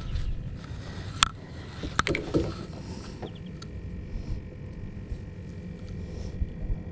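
Two sharp knocks about a second apart, with a brief rattle after the second, as a speckled trout is handled and laid on a measuring board on the fibreglass boat deck, over a steady low rumble; a few faint clicks follow.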